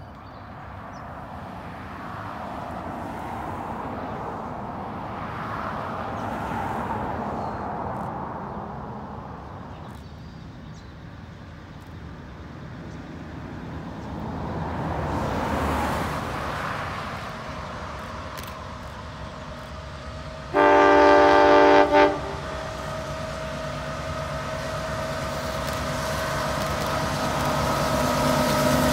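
A locomotive horn sounds loudly for about a second and a half, then gives a short second toot. The train's rumble grows steadily louder as it approaches. Before the horn, a rushing noise swells and fades.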